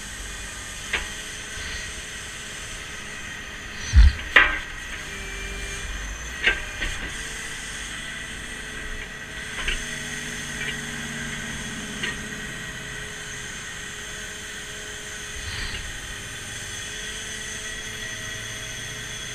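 Rear-mount grapple truck's hydraulic system running steadily with a hiss and a steady whine while the boom and grapple are moved, broken by a string of sharp clanks and knocks. The loudest is a heavy thump about four seconds in.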